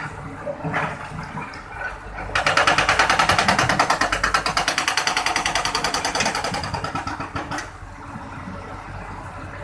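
Excavator machinery running, with a loud rapid mechanical rattle of about eight beats a second starting a couple of seconds in and fading out near the end.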